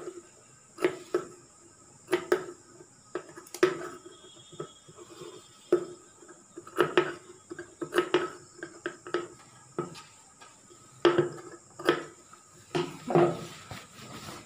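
Scissors snipping small notch cuts into the seam allowance along a curved edge of fabric: a run of short, sharp snips, irregularly spaced, about one or two a second.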